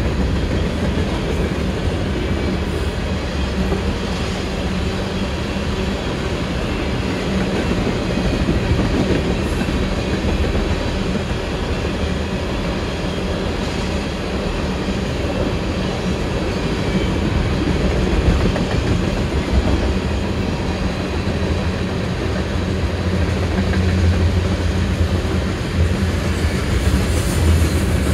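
Freight train cars, centerbeam lumber flatcars and tank cars, rolling past: steady noise of steel wheels on the rails, a little louder near the end.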